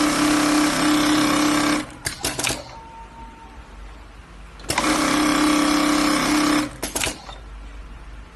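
Golden Choice GC-6003-UT-D pneumatic string lasting machine sewing in two runs of about two seconds each, a steady high-speed whir with a strong hum. Each run stops and is followed by a few quick clicks.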